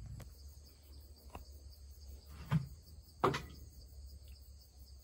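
Steady high-pitched chirring of crickets and other insects, with two short knocks about two and a half and three and a quarter seconds in.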